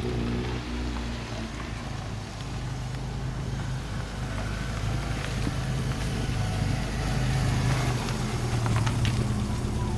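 1993 Rover Mini Cooper 1.3's four-cylinder engine running at low revs as the car drives slowly, the engine note dropping in the first second as it eases off and swelling a little later.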